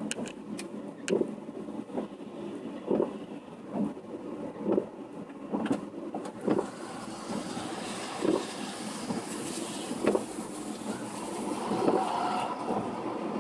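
Traffic passing on a rain-soaked road: a tractor going by, then cars whose tyres hiss through the surface water, the hiss building in the second half. A regular dull thump sounds about once a second throughout.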